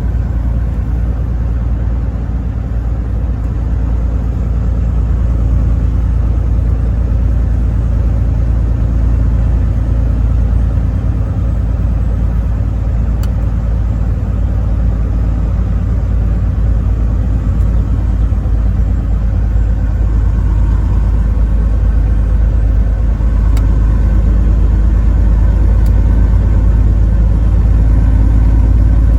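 Truck driving on the highway: steady low engine and road rumble, growing slightly louder over the last several seconds.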